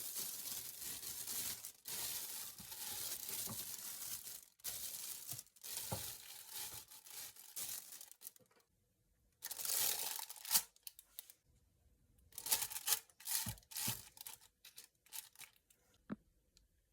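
Thin plastic slow-cooker liner crinkling and rustling as it is unfolded and fitted into the crock pot: a long stretch of continuous rustling, a brief pause, then another burst and scattered shorter rustles.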